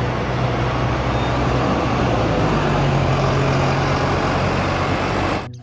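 Double-decker bus driving past, its engine running steadily under road noise, the engine note rising a little about halfway through. The sound stops abruptly near the end.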